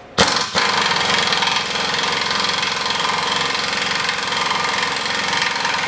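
Impact wrench running in reverse, hammering loose the tie rod end's nut on a steering knuckle. It gives a short blip, then runs steadily.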